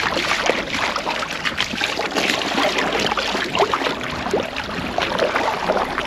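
Lake water splashing and gurgling around a kayak on the move, with irregular small splashes and bubbling.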